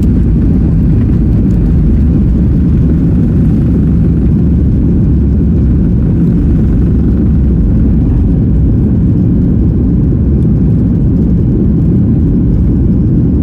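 Boeing 737-8 MAX on its takeoff run or climb-out: a steady, loud, low rumble of jet engines and airflow that stays even throughout.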